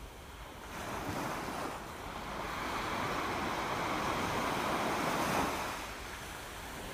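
Sea water washing and sloshing in a rockpool: a rushing noise that swells over a few seconds, then eases off about six seconds in.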